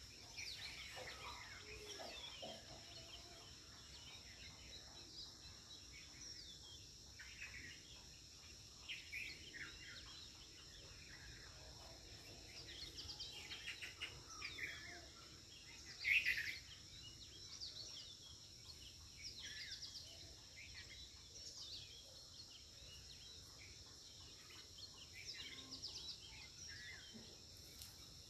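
Birds chirping and calling in short scattered calls over a faint, steady, high insect drone, with one louder call about halfway through.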